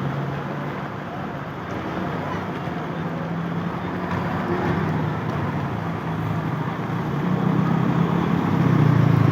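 Roadside traffic: vehicle engines and tyre noise running steadily, with a heavy engine drone growing louder over the last two seconds as a vehicle approaches.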